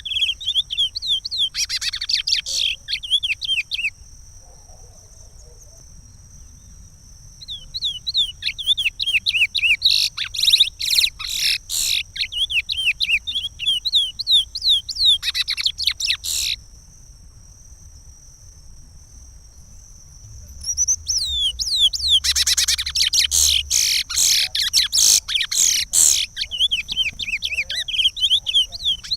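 Chestnut-bellied seed-finch (curió) singing the Pará regional song type: phrases of rapid, sweeping whistled notes, broken by pauses of a few seconds. A steady high thin tone runs underneath.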